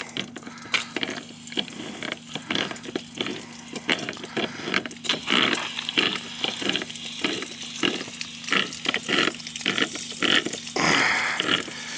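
Water spraying and splashing from a leaking outdoor frost-free faucet as its loose fitting is tightened with pliers, with irregular clicks and scrapes of the metal tool. The leak comes from the fitting being loose.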